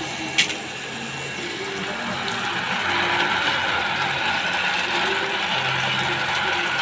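Golden Star deep-well ejector pump running, with water spraying hard from its hose outlet in a steady hiss that grows a little louder about two to three seconds in; the pump is primed and delivering strong flow. A single sharp click about half a second in.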